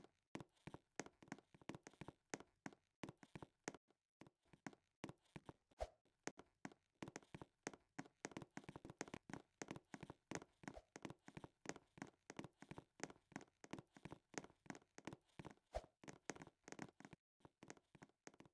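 A steady run of faint, quick taps, about four a second.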